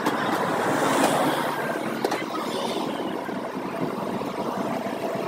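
City bus driving past close by, its engine and tyre noise swelling to its loudest about a second in, then easing into steady street traffic noise.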